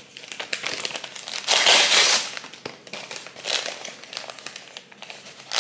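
Brown kraft-paper mailer bag being handled and torn open by hand: irregular crinkling and rustling bursts, the loudest about a second and a half in.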